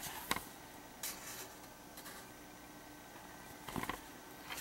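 Thick glossy pages of a hardcover book being handled and turned: a sharp tap about a third of a second in, then several brief paper rustles.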